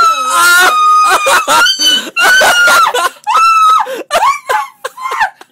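High-pitched human screaming: several long, wavering screams, then shorter broken cries near the end.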